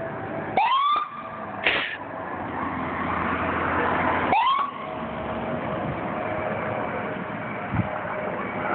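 Patrol car's electronic siren chirping twice, each a quick rising whoop, about four seconds apart, with a short harsh blast just after the first.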